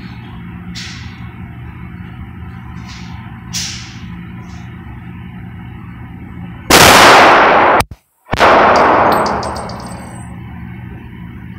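A handgun fired at a shooting range: a very loud, sudden report about two-thirds of the way in that rings on for a couple of seconds, breaking off briefly in the middle. A few faint sharp cracks come before it.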